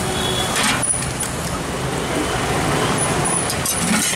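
Steady noise of busy road traffic with engines running, and a couple of short knocks.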